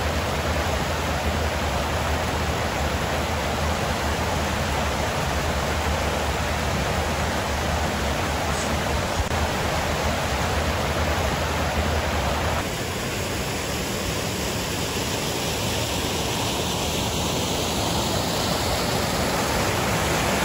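Loud creek water rushing steadily over a small waterfall. The rush changes character abruptly about two-thirds of the way through, when a low rumble underneath drops out.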